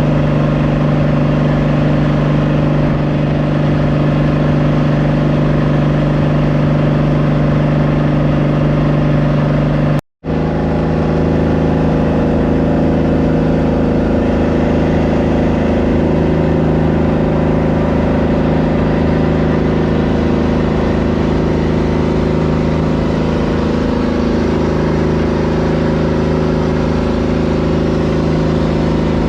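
Boat engine running steadily at a constant pitch, with a brief total dropout about ten seconds in, after which it continues at a slightly different pitch.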